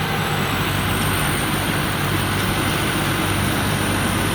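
Somboonpattana rice combine harvester with a 260 hp engine running steadily under load while harvesting, its engine and threshing machinery together making an even noise with a thin, steady high whine over it.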